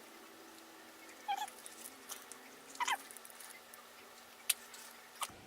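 Faint handling of a plastic blush compact being worked open: a couple of short squeaks and small clicks, with a sharp click about four and a half seconds in.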